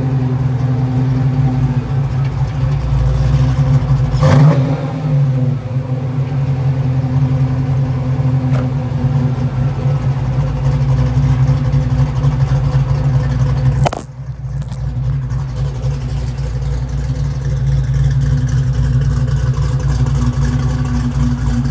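Fox body Mustang engine running steadily, with a brief rev about four seconds in. Near the middle there is a single sharp crack, after which the sound dips for a moment before the steady running resumes.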